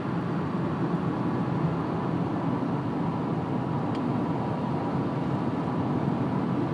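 Steady road and engine noise inside a car's cabin at freeway speed, an even low rumble with no change in pace.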